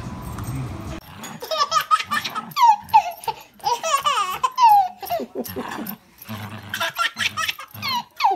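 A baby laughing hard, peal after peal, starting about a second in, with a short pause about six seconds in.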